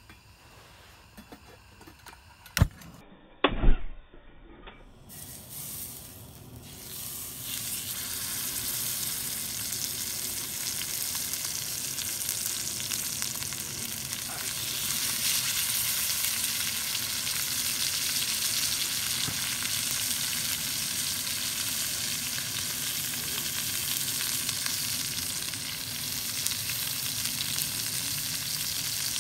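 Two sharp knocks a few seconds in, then steaks sizzling loudly and steadily after being laid in a hot cast iron skillet on a propane camp stove.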